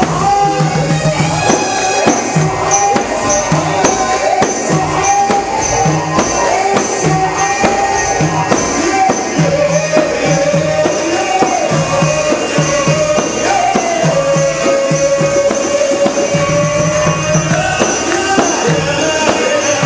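Egyptian shaabi-style band music: a held, wavering melody line over a fast, steady tambourine and drum rhythm.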